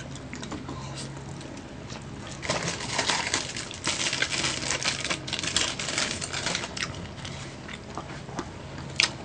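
Close-up crunching and chewing of crispy-coated chicken, with crackling as the coating is bitten and torn; densest and loudest through the middle few seconds.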